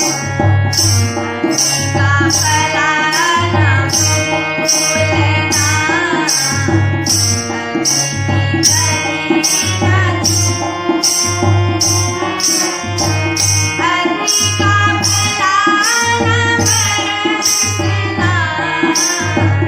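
Indian devotional music: tabla keeping a steady beat under a held drone, with an ornamented melody line gliding over it.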